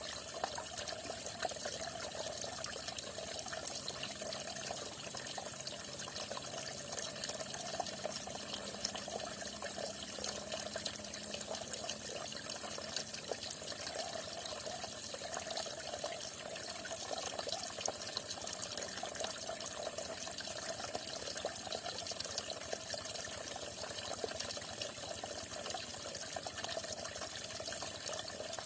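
Water falling steadily, a continuous splashing and trickling with fine droplet ticks throughout.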